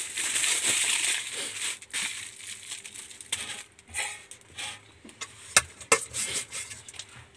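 Aluminium foil crinkling as it is handled, for about the first two seconds, then a few sharp metallic clinks and taps on the steel griddle plate, the loudest two close together past the middle.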